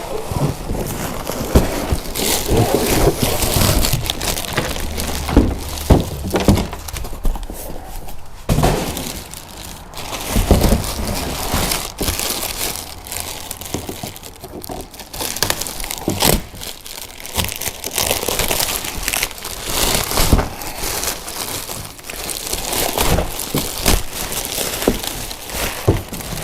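Unboxing: cardboard packaging being torn open and handled, with crinkling wrap and repeated knocks and thunks as the hard plastic cargo boxes are pulled out and moved about.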